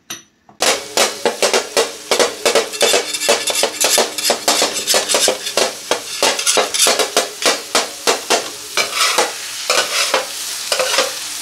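Minced meat frying and sizzling in ghee on a metal tawa while flat metal spatulas chop and scrape it against the griddle, a quick clacking of about three to four strikes a second. It starts about half a second in, and the clacking thins out near the end, leaving mostly sizzle.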